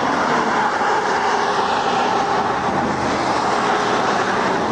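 Highway traffic passing at speed: a steady rush of tyre and wind noise, with vehicles going by in the lanes beside a roadside traffic stop.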